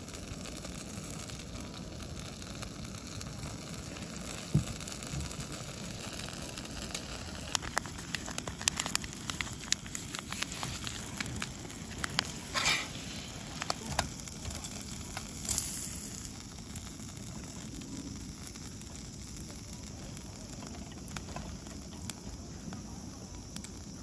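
Pork skin sizzling on a wire-mesh grill over a portable gas canister stove, with the burner's steady hiss under scattered pops and crackles from the fat, busiest through the middle. A few brief papery rustles come near the middle.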